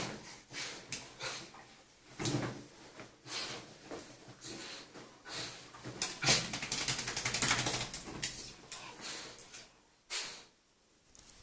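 Schnauzer rolling and rubbing itself on a terry bath towel on a tiled floor: short bursts of towel rustling and scrabbling, with a dense run of scratchy clicks about six to eight seconds in. It goes quiet shortly after ten seconds.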